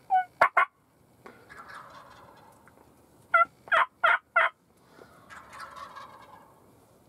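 Wild turkeys calling close by: a pitched call and two quick notes just after the start, then a loud run of four rapid notes a little over three seconds in.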